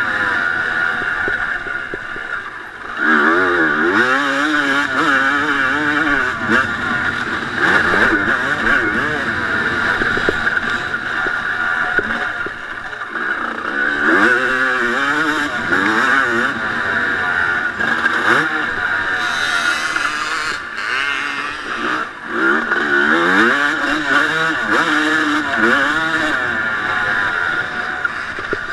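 1989 Honda CR250 two-stroke single-cylinder motocross engine ridden hard on a dirt track, heard from onboard, its pitch climbing and dropping again and again as the throttle is opened and closed.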